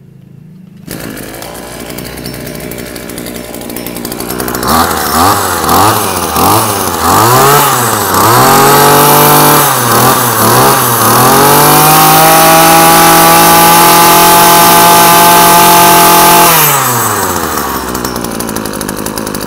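Maruyama GKB2610E 26 cc two-stroke brush cutter engine starting about a second in and idling, then revved in a series of quick throttle blips, held at full throttle for about five seconds, and dropped back to idle near the end.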